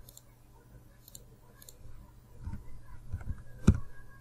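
Computer mouse clicking a few times, with several low thumps in the second half, the loudest a sharp knock about three and a half seconds in.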